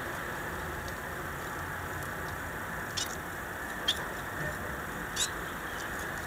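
Caged finches giving a few short, high chirps, three in the second half, over a steady hiss.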